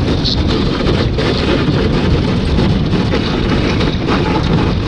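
Thin lake ice crunching and cracking against a small boat's hull as the boat pushes through it, a steady rough grinding noise full of sharp crackles.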